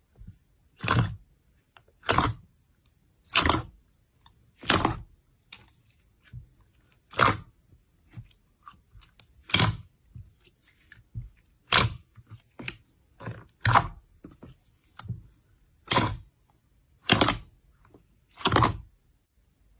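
Thick, glossy white slime in a metal bowl being pressed, folded and punched by hand, giving a series of short, sharp squishing sounds, about one every second or so.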